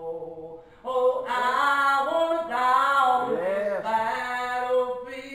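A man singing a gospel song in full voice, holding and bending long notes; it is quieter for the first second, then swells loud.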